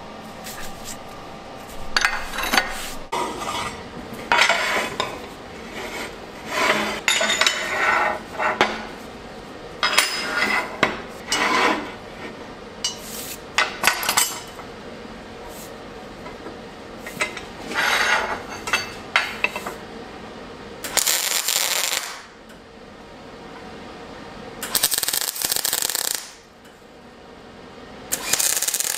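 Steel parts and a bar clamp clanking and scraping on a steel welding table as square steel tubing is set up and clamped. In the last third, three short MIG tack welds crackle for about a second each.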